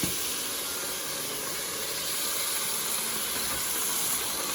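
Beef stir fry sizzling in a hot pan, a steady hiss.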